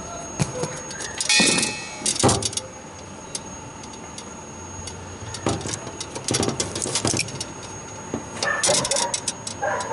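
Small metal parts and hand tools being handled: several short bursts of clinking and rattling.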